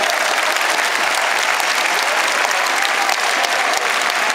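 Large stadium crowd applauding: dense, steady clapping from the stands, with faint voices mixed in.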